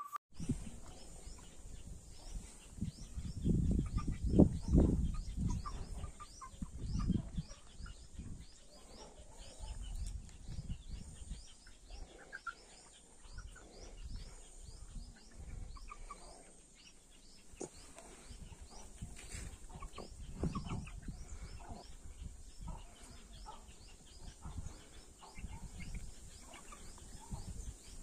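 A flock of young chickens peeping in quick, high, rising chirps, several a second and without a break. Low rumbles come and go, loudest about four seconds in.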